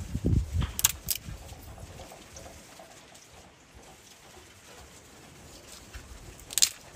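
Light wooden clicks as kindling sticks are handled and laid on paper inside a clay oven: two sharp clicks about a second in and another near the end, with low handling thuds at the start.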